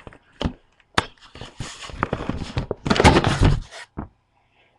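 A series of knocks and thuds with rustling handling noise, loudest in a dense noisy stretch about three seconds in.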